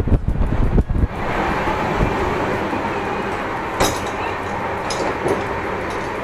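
Moving passenger train heard from the coach door area: wind buffets the microphone for about the first second, then the steady rumble and hiss of the running coach. A sharp click comes about four seconds in, with a couple of lighter ones a second later.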